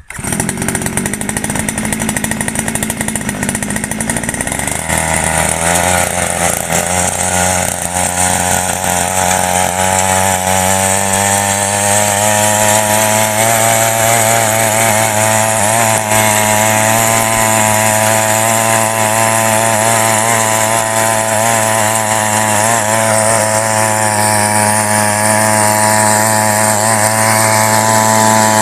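Mini weeder's small petrol engine catching right at the start. From about five seconds in it runs fast and steady, its pitch wavering slightly as the rotary tines dig into soil.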